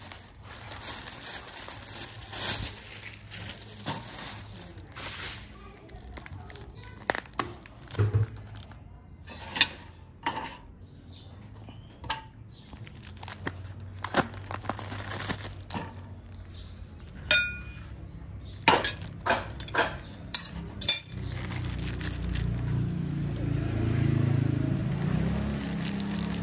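Dishes and cutlery clinking in scattered sharp clicks, one about two-thirds of the way in leaving a brief ringing tone. A low rumble builds over the last few seconds.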